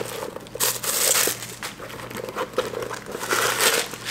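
Paper and clear plastic packing stuffing crinkling and rustling in irregular bursts as it is pulled out of a small leather handbag by hand.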